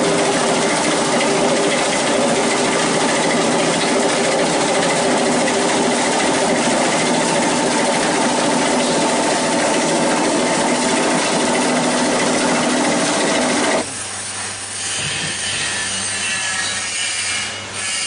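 Plastic granulator running and grinding material: a loud, dense grinding noise with a steady machine tone. About fourteen seconds in the grinding cuts off abruptly, leaving a quieter running sound with a low hum.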